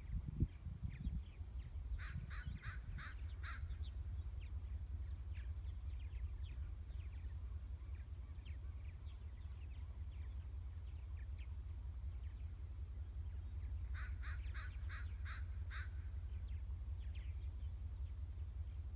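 A crow cawing in two quick runs of about six caws each, one near the start and one about three-quarters through, with faint chirps of other birds between them. A steady low rumble runs underneath.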